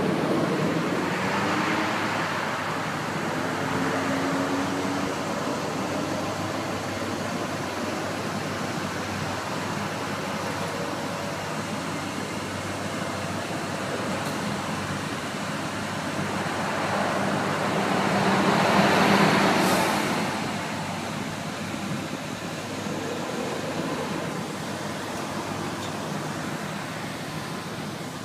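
Lowered 1957 Dodge pickup rat rod's engine idling steadily, with road traffic swelling past, loudest about two-thirds of the way through.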